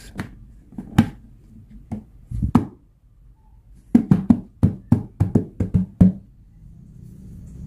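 Snap-on plastic lid being pressed down by hand onto a plastic tub, sealing it: a few scattered sharp clicks and taps, then a quick run of about ten clicks around the rim between about four and six seconds in.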